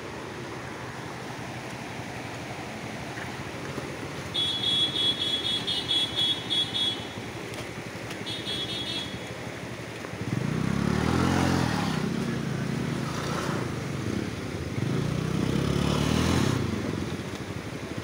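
Rushing of a swollen, muddy river, joined from about ten seconds in by a scooter and a motorcycle engine revving in two surges as they climb a muddy, rocky track. A high, rapidly pulsing chirp sounds twice a little before the engines.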